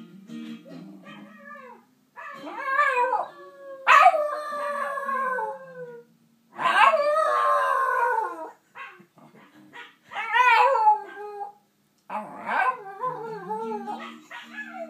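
Shiba Inu howling with his head thrown back: about five long howls, each wavering up and down in pitch, with short gaps between them. He is howling along to a playback of his own singing.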